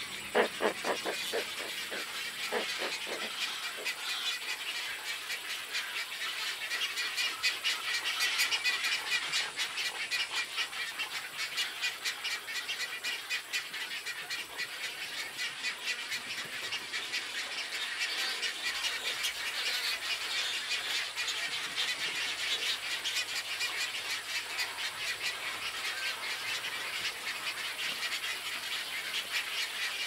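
Raucous rookery of nesting waterbirds such as great egrets and roseate spoonbills: a dense din of many birds calling at once, rapid chattering and clicking calls, with a few loud low croaks in the first couple of seconds.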